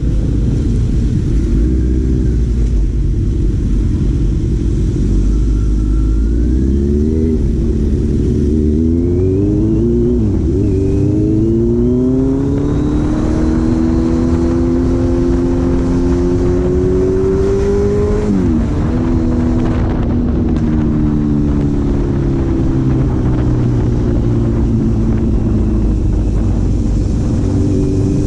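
Four-cylinder engine pulling through the gears. Its pitch rises and falls back several times a few seconds in, climbs and holds at a steady cruise, drops sharply about 18 seconds in, then eases down and runs steadily.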